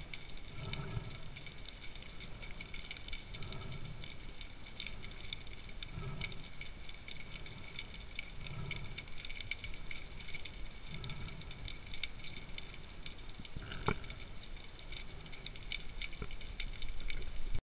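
Underwater sound picked up by an action camera in its waterproof housing: a steady fine crackling hiss, with a low watery whoosh about every two and a half seconds and one sharp click about fourteen seconds in.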